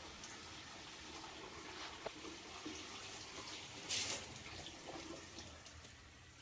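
Faint running and splashing water, with a short louder spray of water about four seconds in.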